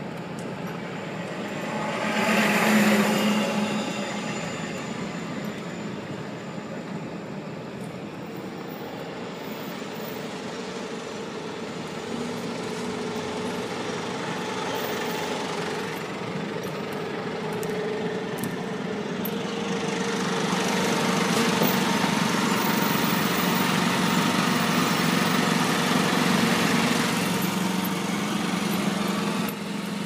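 Vehicle engine and tyre noise heard from inside the cab while driving slowly along a dirt site road, with a dump truck passing close by about two to three seconds in. Later the engine pulls harder for several seconds, then eases off just before the end.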